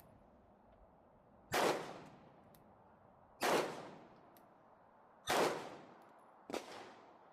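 FN 509 Tactical 9mm pistol fired four times in slow fire, about two seconds apart, each shot cracking and then dying away in a short echo. The last shot comes a little sooner and is quieter.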